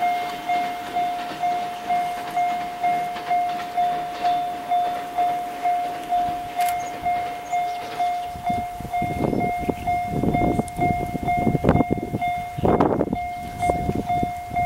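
Railway level-crossing warning bell ringing a steady electronic ding about twice a second, the signal that a train is approaching the crossing. About eight seconds in, irregular low rumbles join it.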